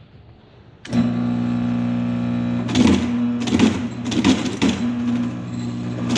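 Bostitch electric stitcher's motor starting up with a steady hum about a second in, then a series of short, loud mechanical strokes as the stitching head cycles and drives staples.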